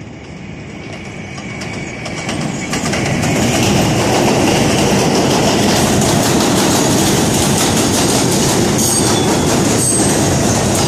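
New York City subway train of R143 cars on an elevated steel structure, approaching and then passing close by. It grows louder over the first few seconds, then holds a steady loud rumble with rapid clatter of the wheels over the rail joints. Brief high-pitched wheel squeals come near the end.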